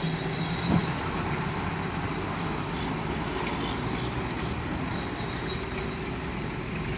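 Heavy diesel goods lorry's engine running steadily as it pulls slowly around a tight hairpin bend, with a brief knock about a second in.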